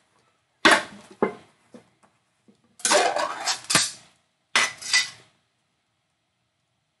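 Snack package being opened and handled: three bursts of crinkling and clattering, with a sharp click near the middle.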